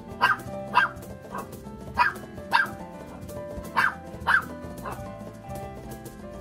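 Short sharp animal calls in quick pairs, one pair about every two seconds, over steady background music.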